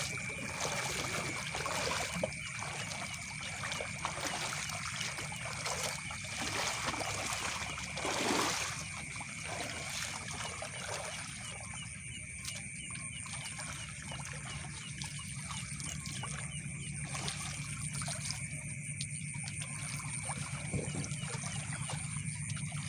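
Shallow rice-paddy water sloshing and trickling as someone wades and works in it, with a louder splash about eight seconds in. Underneath is the steady high-pitched chorus of night insects.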